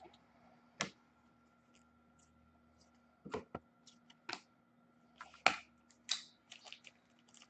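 Trading cards being handled and set down: a scattering of soft clicks and taps, busier toward the end, over a faint steady hum.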